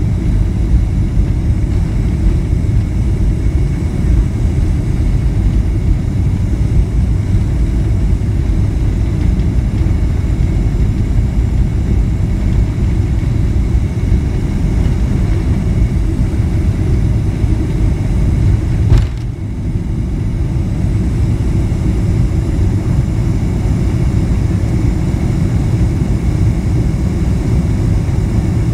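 A Boeing 767-300's jet engines at takeoff power, heard from inside the cabin over the wing: a steady, deep rumble through the takeoff roll and climb-out. A single sharp thump comes about two-thirds of the way through, and the noise dips briefly right after it.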